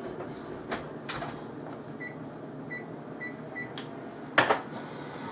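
Four short, high electronic beeps about half a second apart, like an appliance keypad being pressed, over a steady low hum. A few light clicks and one louder knock come near the end.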